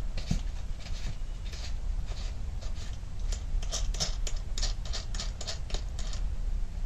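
Gloved fingers twisting loose the knob that holds a gasoline chainsaw's air filter cover: a run of small scratchy clicks and ticks, thickest about halfway through.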